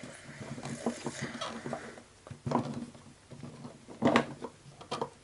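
Plastic pieces of a Play-Doh playset being handled and set down on a table: scattered light clicks and taps, with two louder knocks about two and a half and four seconds in.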